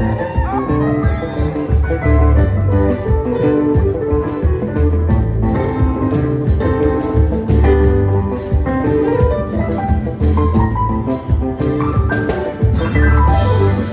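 A band playing an instrumental improvisation: a keyboard player's melodic runs over a heavy bass line and a steady drum beat.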